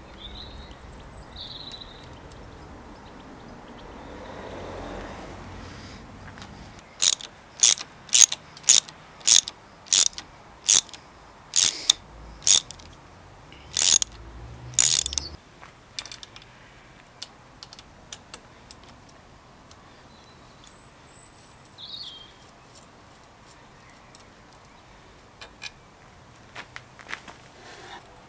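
Ratchet wrench clicking in about a dozen sharp strokes, roughly two a second, as it turns a bicycle brake's pivot bolt, stopping about halfway through. Lighter metal clicks and taps follow near the end as a brake pad is fitted.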